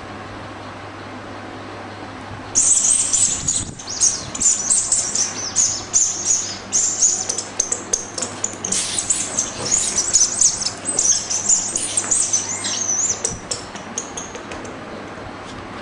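Black Labrador puppy at play with a toy: rapid, high scratchy rustling and crinkling that starts about two and a half seconds in, runs for about twelve seconds in quick irregular strokes, then dies away.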